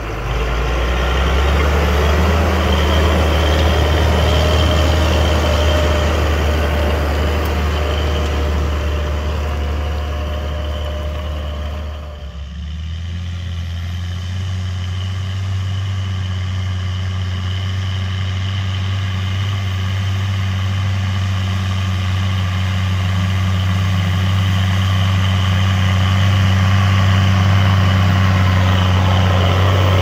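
Fendt 920 Vario TMS tractor's six-cylinder diesel engine running steadily under load while pulling a Horsch Joker disc harrow through stubble, with a deep, even note. It breaks off briefly about twelve seconds in, then returns and grows louder near the end as the tractor comes close.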